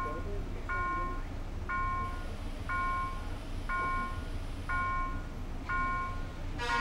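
Railway level-crossing warning bell sounding a short ringing tone about once a second, signalling that the barriers are down and a train is due. Street traffic rumbles underneath, and there is a sharp click near the end.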